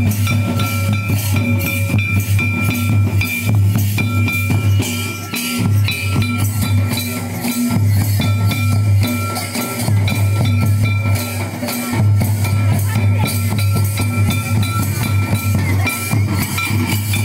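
Santal folk dance drums, some beaten by hand and some with a stick, playing a fast, steady rhythm. A steady ringing tone sounds above the drums.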